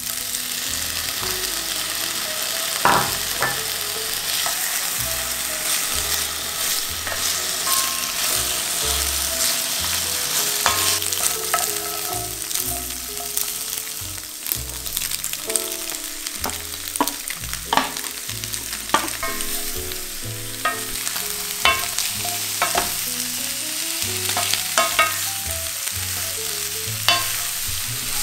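Tofu, carrot, bell pepper and zucchini stir-frying in oil in an enamelled pan: a steady sizzle, with a wooden spatula knocking and scraping against the pan many times as the pieces are turned.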